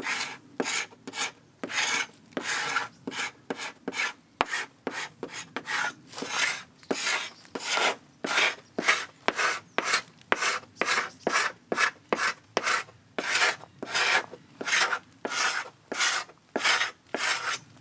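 Hand paint scraper drawn over and over across a wooden boat hull, stripping old paint down to bare timber: a rasping scrape about twice a second, each stroke starting with a sharp tick.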